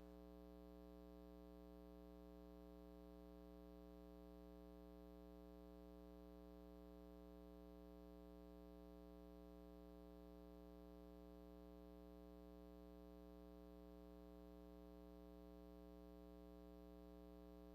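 Faint, perfectly steady electronic drone of several held tones, unchanging throughout.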